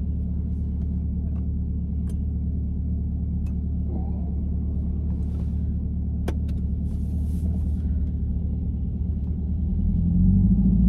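Corvette C8's V8 engine running steadily, with a low rumble. About ten seconds in it rises in pitch and gets louder as it picks up revs.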